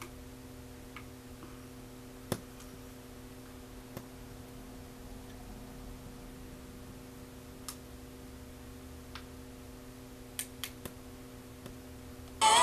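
Quiet room with a steady electrical hum and a few scattered light clicks and taps. Just before the end, the spirit box radio suddenly comes on loudly, playing music.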